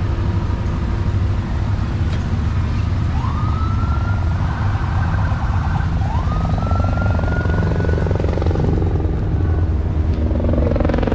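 A siren sounding two rising wails about three seconds apart; each sweeps up and holds its pitch for a couple of seconds. Underneath runs the steady low rumble of slow-moving parade vehicles' engines.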